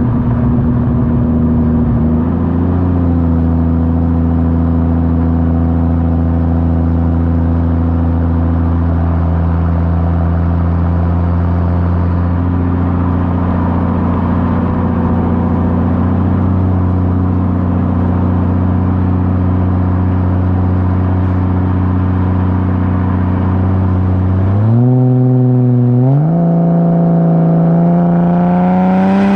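Ford FG Falcon XR6 Turbo's turbocharged straight-six heard through a 4-inch exhaust with the rear muffler deleted, droning at a steady pitch at constant speed. About five seconds before the end it accelerates: the pitch climbs, drops at a gear change, then climbs again.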